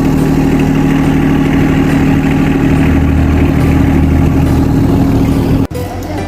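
A motor runs with a loud, steady drone that holds low tones, then cuts off abruptly near the end.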